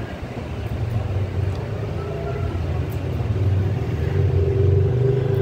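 Motorbike engine passing by outside, a low rumble that grows louder toward the end, with a steady hum over it from about two seconds in.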